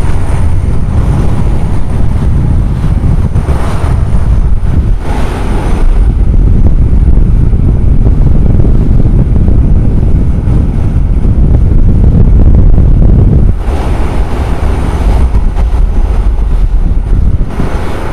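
Fishing boat's engine running with a heavy, steady low rumble while underway, mixed with rushing water and wind noise. Surges of hiss come through several times.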